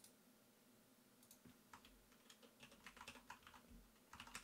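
Computer keyboard typing: a faint, uneven run of quick key clicks from about a second in, after a single click at the start.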